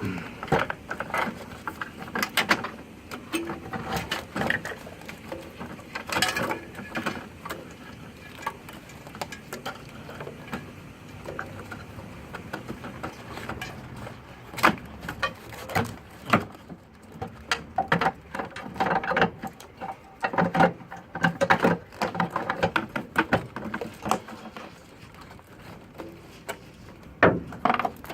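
Hands working a glow plug wiring harness into place in a diesel engine bay: irregular clicks, taps and rustling.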